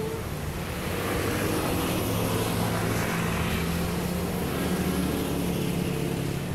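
Steady low engine drone, with a broad rushing noise that swells about two to four seconds in.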